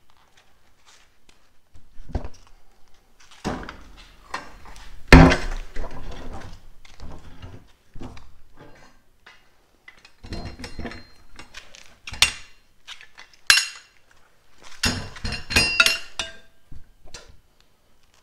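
Metal brackets of a universal mobile-base kit clinking and clattering as they are handled and set against a wooden board, in irregular bursts with a few ringing clinks. The loudest knock comes about five seconds in.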